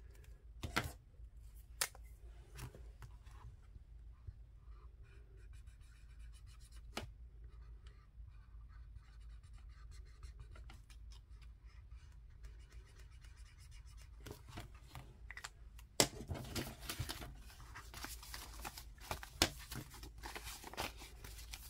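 Faint scratching of a marker tip on paper as small hearts are coloured in on a printed tracker. About two-thirds of the way in it gives way to louder rustling and flicking of paper banknotes being handled.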